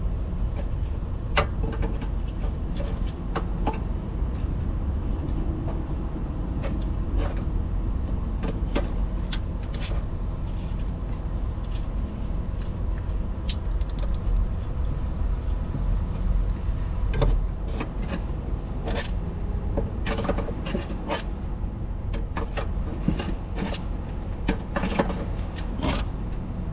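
Irregular metallic clicks and taps of a hand wrench as the nuts on a truck's drive axle air spring are tightened, over a steady low engine rumble.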